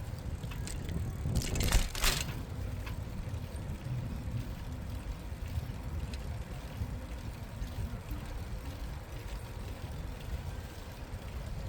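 Bicycle riding sounds: a steady low rumble of wind on the microphone and tyres rolling, broken about two seconds in by a short rattling clatter, like the bike jolting over a bump.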